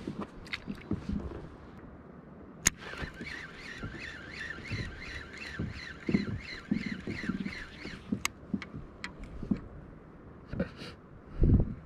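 A fishing reel being cranked in a steady retrieve for about five seconds, its gears whirring in a wavering rhythm of about three or four turns a second. It starts and stops with a sharp click. Low knocks on the kayak hull come and go, with a heavier thump near the end.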